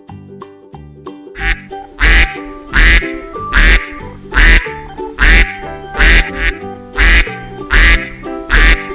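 Duck quacks over light children's music: a loud quack about every 0.8 seconds, starting about a second and a half in.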